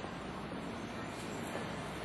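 Steady outdoor town noise with distant road traffic, an even hum with no single event standing out.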